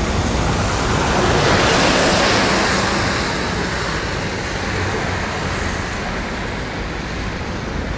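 City street traffic on a wet road: the tyre hiss of a passing vehicle swells and peaks about two seconds in, then fades, over a steady low rumble of traffic.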